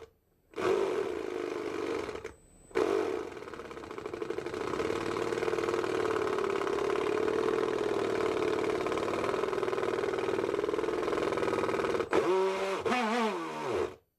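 RC boat's electric motor turning the propeller shaft: two short bursts, then a long steady run, with the pitch rising and falling several times near the end before it cuts off suddenly. The motor sits on loosened mounting screws and is out of line with the propeller shaft.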